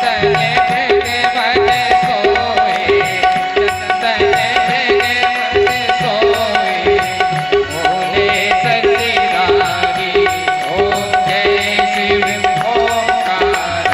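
Indian devotional music: a wavering melody over a held drone tone, with a steady beat.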